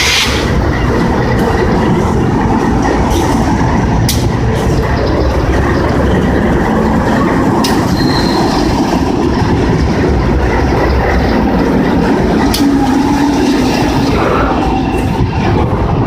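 BNSF intermodal freight train rolling past at close range: a steady loud rumble of wheels and cars on the rail, with three sharp clanks spread through it and a brief high squeal about eight seconds in.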